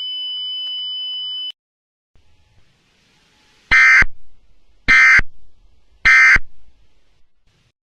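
A steady high electronic tone cuts off about a second and a half in; after a short pause come three short, identical data bursts about a second apart: the Emergency Alert System SAME end-of-message (EOM) signal, a simulated recreation, marking the end of the alert.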